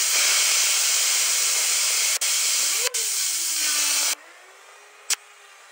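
A 60,000 PSI waterjet's high-pressure jet hissing loudly as it blasts against a roller skate wheel to spin it up, with a faint tone that glides up and then down in pitch. A little past halfway the hiss cuts off suddenly, leaving a faint steady tone and a couple of short clicks.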